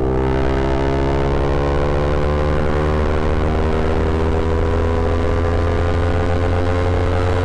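Yamaha R15 V3's single-cylinder engine through an Akrapovic M1 aftermarket exhaust, pulling steadily under throttle, its note climbing slowly and evenly.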